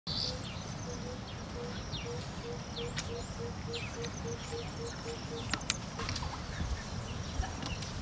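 Farm-field ambience: scattered short bird chirps over a low rumble, with a repeated low note about three times a second that stops about five and a half seconds in.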